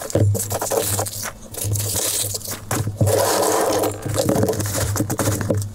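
Hands digging through polystyrene packing peanuts and bubble wrap, giving continuous rustling and scraping with irregular crunches.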